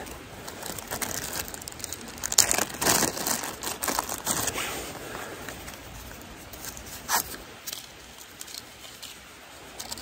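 Rustling and a few short clicks of hands handling a cardboard box of long matches and drawing out a match.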